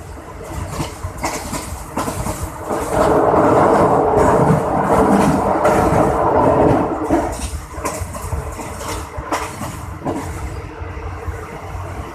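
State Railway of Thailand train running along the track, its wheels clicking repeatedly over the rails, with a louder stretch of about four seconds in the middle.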